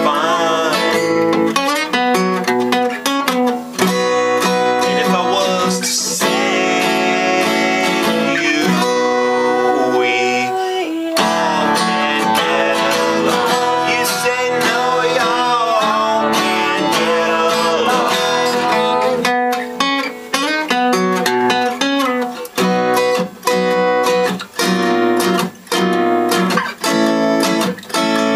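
Acoustic guitar strummed and picked in a folk song, with a melody line over the chords; in the second half the strummed chords come in short, separate strokes.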